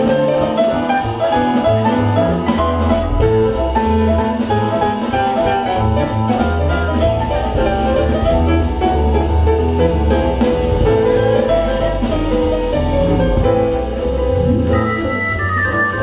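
Instrumental jazz with piano, bass and drums, a cymbal keeping a steady beat.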